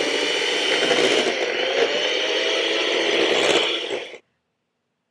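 Electric hand mixer running steadily, beating cake batter in a bowl. It cuts off suddenly a little after four seconds in.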